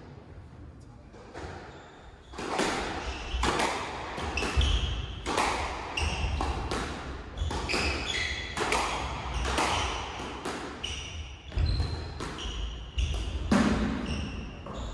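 Squash rally: sharp, echoing hits of racket on ball and ball on the walls, beginning about two seconds in and coming every second or so, with short shoe squeaks on the wooden court floor between them.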